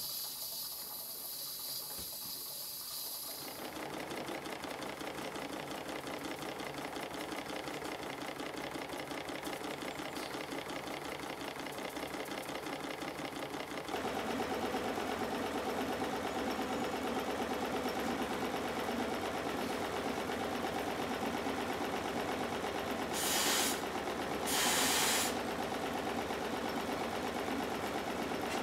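Stuart triple-expansion three-cylinder model steam engine running on steam with a fast, even mechanical clatter. It opens with a few seconds of hissing steam, and near the end two short bursts of steam hiss cut in.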